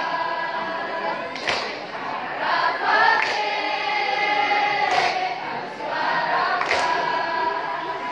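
A mixed school choir singing long, held notes together. A few sharp knocks cut across the singing, about every one and a half to two seconds.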